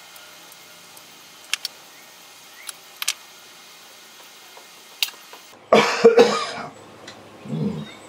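A few faint clicks of small hand tools, then a man coughs twice in quick succession about six seconds in, followed by a short, quieter sound from the throat.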